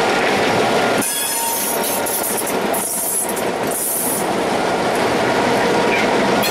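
Pair of EMD GP16 diesel locomotives running past close by with a freight train, engines running and wheels rumbling over the rails. A high wheel squeal rises from about a second in and fades out around four seconds in as the first covered hopper cars follow.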